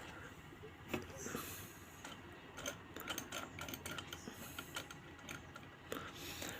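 Faint, irregular small clicks and light scraping as the contact arm of a servo voltage regulator's stabilizer is handled and moved by hand.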